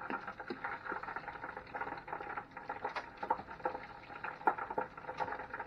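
Hot oil crackling and bubbling in a countertop deep fryer as fish fries: a dense, busy patter of small pops.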